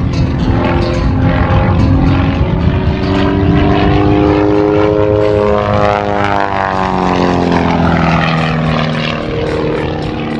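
Pitts S1S aerobatic biplane's piston engine and propeller running hard during an aerobatic routine. The pitch climbs to a peak a little past the middle and then falls away.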